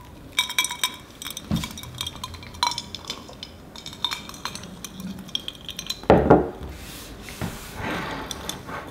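Toast with a crisp buttery crust being torn apart and set down on a ceramic plate: a run of small crackles and light clinks, then a single louder thump about six seconds in.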